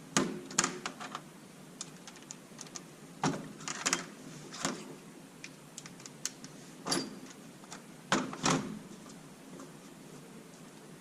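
Irregular clicks, taps and knocks of tools and supercharger parts being handled and set down during disassembly, with louder knocks near the start, around four seconds in, and around seven to eight seconds in.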